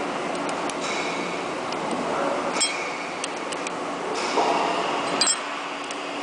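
Small metal clicks and clinks as a hand tool is worked against the steel body of a hydraulic lathe chuck, with patches of cloth rubbing over the metal, over a faint steady hum.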